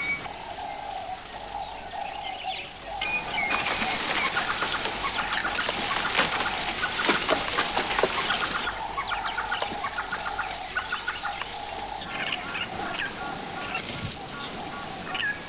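Wild birds calling in the bush, with short clucking and chirping calls repeated over and over. A stretch of rustling and crackling runs from about three and a half to nine seconds in.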